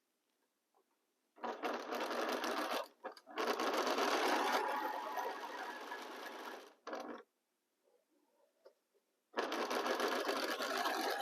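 Sewing machine stitching a seam through fabric in separate runs. One run goes for about five seconds with a brief pause in it, there is a short burst after it, and a second run starts near the end.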